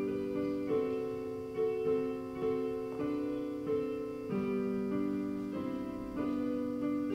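Piano playing soft, slow, sustained chords, with a new chord struck every second or less.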